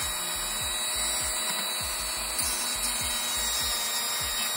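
Rotary multitool running steadily at high speed, its small cutting disc grinding into the plastic shell of a GoPro Hero 9 camera, with a constant high whine over a grinding hiss.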